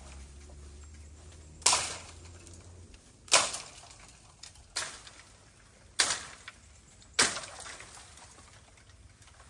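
Five sharp strikes, a little over a second apart, each dying away quickly. A low hum fades out about three seconds in.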